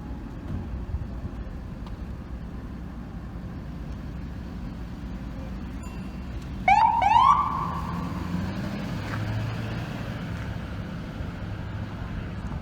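City traffic rumble, then about two-thirds of the way through two quick rising whoops from an emergency vehicle's electronic siren, the loudest sound here. A low, steady drone follows.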